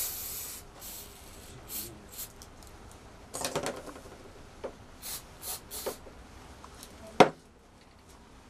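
Short scratchy rubbing strokes of hand work on a styrofoam drone airframe, with a few light clicks and one sharp knock about seven seconds in.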